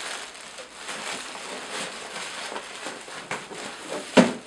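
Plastic bags and air-pillow packing rustling and crinkling as hands rummage in a cardboard shipping box, with one sharp knock near the end.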